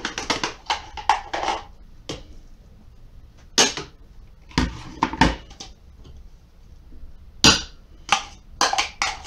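Red plastic grid vegetable dicer being handled over a steel pot and set down on a table: irregular sharp knocks and plastic clatter as the diced carrot is emptied out, the loudest knocks about halfway through and near the end.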